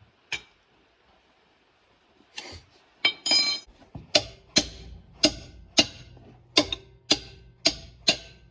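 Sledgehammer striking a tire iron to break the lug nuts loose: sharp ringing metal clanks, about two a second, starting about three seconds in.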